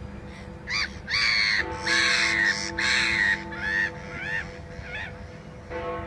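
Gulls calling: a run of about seven loud, arching cries, the middle ones longest, between about one and five seconds in. Under them the Westminster clock-tower bells hum steadily, and a new bell strike comes near the end.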